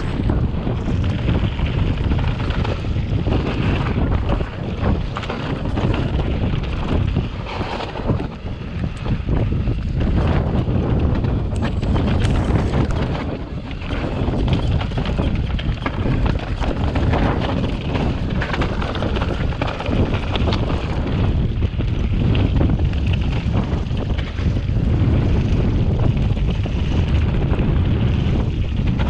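Wind buffeting the camera microphone while a mountain bike descends a rocky dirt trail, its tyres crunching and its frame and parts rattling with many small knocks over the stones.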